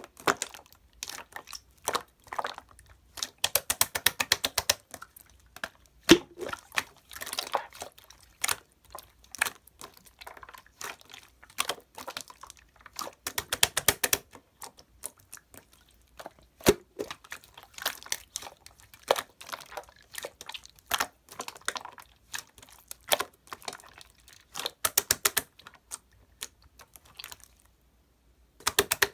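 Irregular close-up crinkling and crunching, made of scattered sharp clicks and short bursts of rustle.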